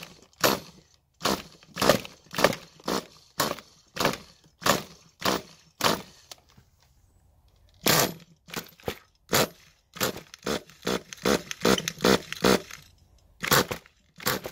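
Pull starter of a 3.5 cc RC nitro engine being yanked again and again, about two pulls a second, with a pause of a couple of seconds in the middle and quicker pulls after it; the engine turns over with a kick but does not fire, which the owner suspects is flooding.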